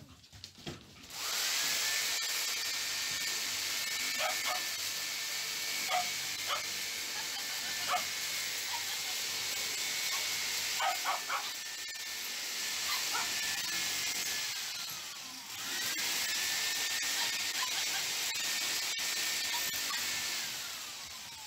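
Handheld corded power drill running under load against a woven bamboo wall panel: it spins up about a second in, runs steadily for roughly 14 seconds, winds down, then spins up again for a second run of about 5 seconds and winds down near the end. A few short sounds come through over the motor.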